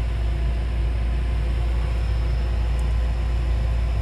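Sno Bear's engine running with a steady low rumble, heard from inside the vehicle's cabin.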